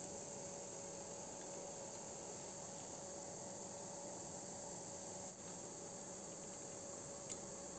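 Crickets chirring steadily, a continuous high-pitched drone, with a faint steady hum beneath it.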